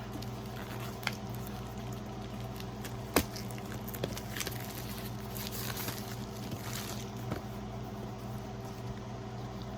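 A cardboard product box and its packaging being handled and opened: scattered rustles, scrapes and a few sharp clicks, the sharpest about three seconds in, over a steady low hum.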